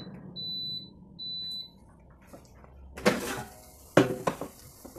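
Philips air fryer's touch panel giving two short, high beeps as it is set, over a low hum. About three seconds in come sharp clatters as the basket is pulled out of the fryer.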